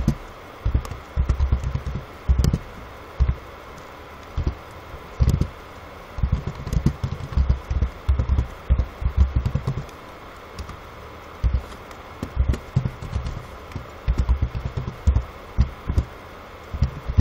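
Computer keyboard typing in irregular bursts of keystrokes with short pauses between them. Each keystroke is a dull, low tap.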